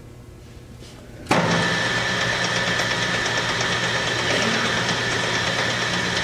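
DoAll Romi 13-5 engine lathe switched on about a second in, its spindle and geared headstock coming up to speed at once and running steadily. It runs with a low hum under a steady high whine.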